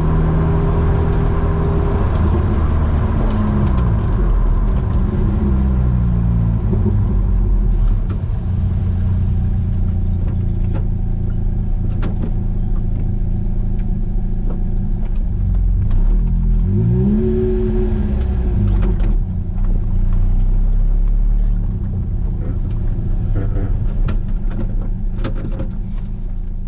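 Opel Speedster's four-cylinder engine with a Larini sport exhaust, heard on board while driving: the engine note rises and falls with the revs, with a clear swing down and back up in pitch a few seconds in and another quick rise and drop in the middle, as through gear changes.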